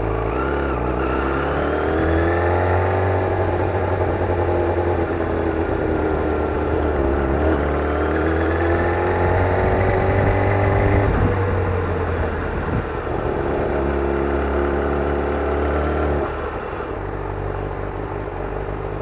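Yamaha YZF-R6's 600 cc inline-four engine running at low town speed. Its pitch rises and falls several times as the throttle is opened and closed, drops suddenly about eleven seconds in, and settles to a lower, quieter note near the end.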